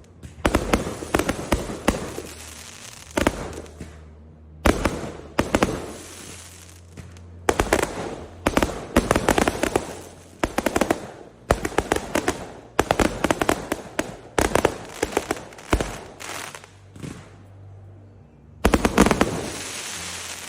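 Aerial fireworks going off in rapid volleys of sharp bangs and cracks, each volley lasting a second or two with short lulls between them.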